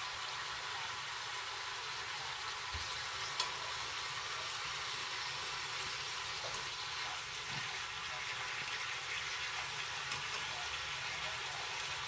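Food sizzling steadily in a hot pan, with one light knock about three and a half seconds in.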